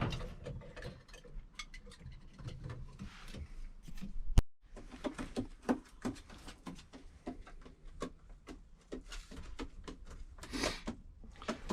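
Irregular scuffing and scraping on wood, with scattered small clicks and one sharp click about four seconds in.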